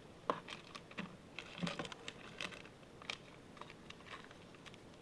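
Trading cards being handled, flicked and shuffled in the hands: a scatter of light clicks and taps.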